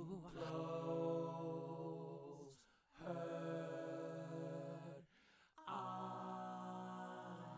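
Three long, held, wordless sung vocal notes, each about two and a half seconds with a short break between them, played back as a vocal part from a Roland Verselab MV-1 groovebox.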